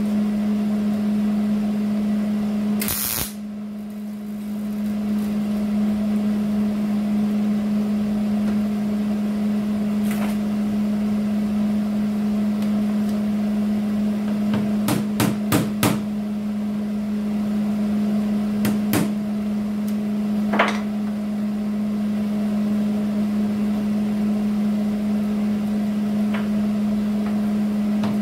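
Hammer tapping a sheet-steel rocker patch panel, sharp metallic strikes in small quick groups (four about halfway through, then two, then one), over a steady electrical hum. A short loud burst about three seconds in.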